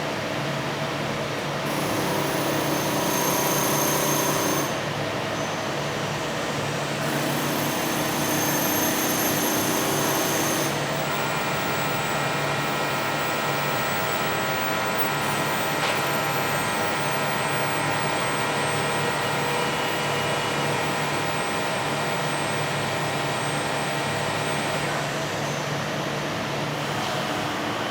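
Automated machining equipment running: a steady machine hum, with motor whines that start and stop every few seconds, and a higher, many-toned whine that holds for about fourteen seconds from near the middle.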